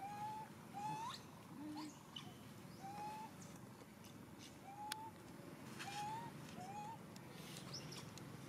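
Baby monkey giving repeated short, rising coo calls, about one a second.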